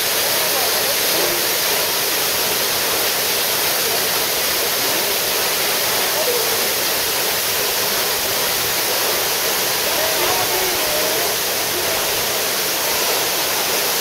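Waterfall pouring down a rock face, a steady, even rush of falling water.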